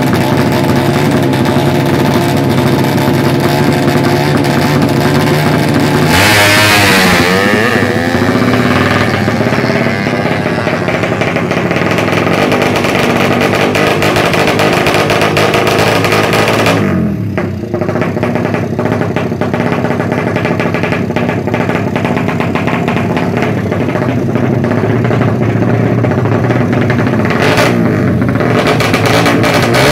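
Race-tuned Suzuki Satria FU single-cylinder four-stroke with a ported head and a racing exhaust, running loud and being revved hard, its pitch sweeping sharply up and back down about six seconds in, again around seventeen seconds, and near the end.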